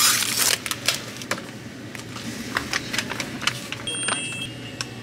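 A foil seal peeled off a plastic cup of ice with a short tearing rush, then ice cubes and plastic packaging clicking and rustling as they are handled. A short, high electronic beep sounds about four seconds in.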